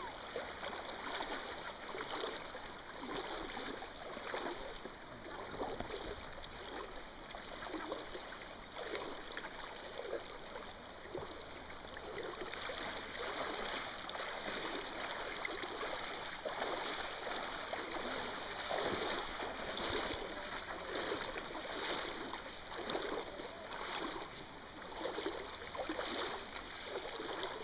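Shallow river water splashing and sloshing again and again, over a steady rush of flowing water, as a hooked silver salmon thrashes at the surface.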